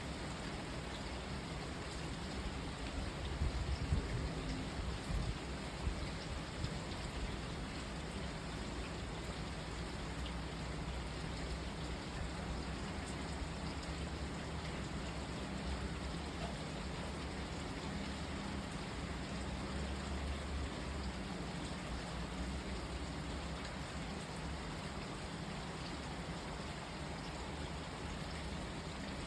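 Steady rain falling, an even hiss throughout, with a louder low rumble and a few sharper peaks about three to six seconds in.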